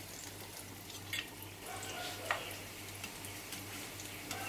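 Besan-battered onion rings deep-frying in a pan of hot oil, a steady fizzing crackle, with two faint clicks about a second apart.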